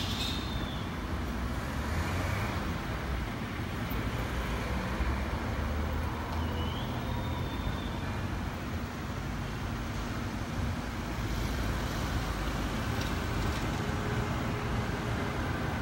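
Steady low rumble of a Boeing 777-200ER's jet engines as the airliner climbs out overhead.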